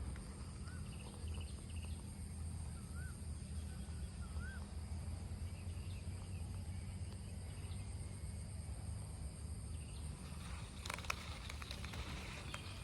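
Rural outdoor ambience: a small bird gives a few short chirps early on over a steady low rumble and a thin, steady high insect drone. A few sharp clicks come near the end.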